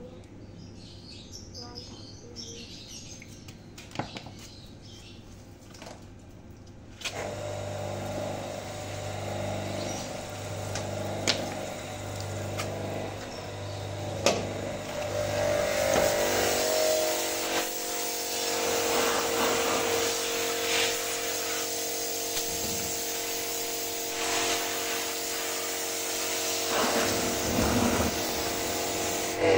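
A compact electric pressure washer starts about seven seconds in and runs steadily with a motor hum, its water jet hissing louder from about halfway as it sprays the fan and condenser of an outdoor air-conditioner unit; it cuts off suddenly near the end. Before it starts there are only a few faint clicks.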